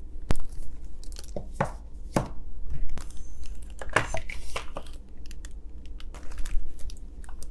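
Tissue paper and packaging rustling and crinkling as items are lifted out of a gift box, with a series of sharp taps as small cardboard lipstick boxes are set down on a hard tabletop.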